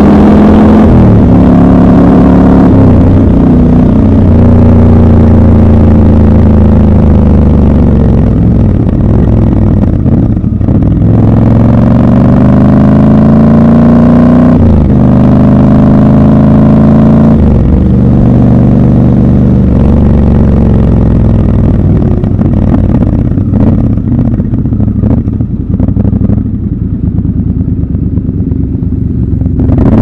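Triumph Scrambler 1200 XC's 1200 cc parallel-twin engine pulling the bike along, heard from the rider's seat. The engine pitch rises and drops in steps as it goes through the gears, then falls away and quietens in the last third as the bike rolls off and slows.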